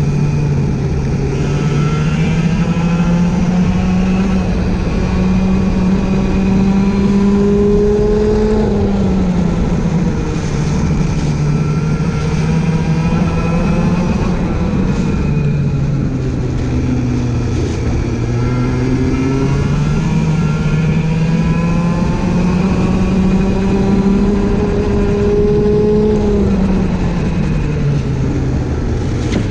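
Go-kart engine running flat out, heard from the kart's onboard camera. Its pitch climbs slowly for several seconds as the kart accelerates, then drops as the driver lifts off for a corner. This happens three times: about nine seconds in, around fifteen seconds, and near the end.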